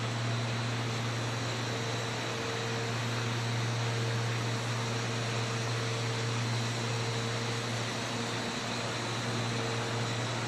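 PET sheet extrusion line and its auxiliary drying equipment running: a steady low machine hum under an even fan-like hiss, with no change.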